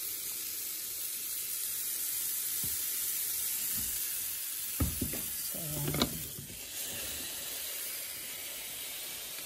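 Waffle batter sizzling on the hot plates of an electric heart-waffle iron, a steady hiss. About six seconds in there is a brief knock as the lid is shut.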